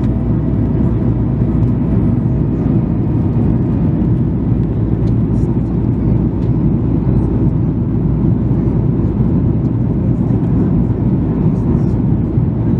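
Steady cabin roar of a Boeing 737-800 in flight on approach with its flaps extended: its CFM56 engines and the rushing airflow heard through the fuselage, a deep, even rumble.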